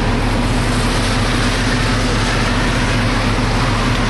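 Heavy diesel engine running steadily at a constant speed, a loud, even low drone.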